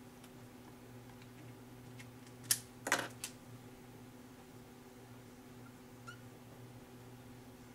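A few sharp plastic clicks and taps about two and a half to three seconds in, as a whiteboard marker is picked up and uncapped and markers are set down on the desk. A steady low hum runs underneath.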